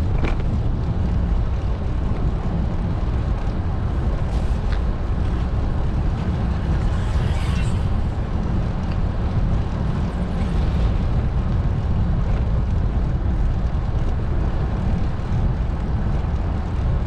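Steady low rumble of wind buffeting the microphone on a moving bicycle, with a brief hiss about seven seconds in.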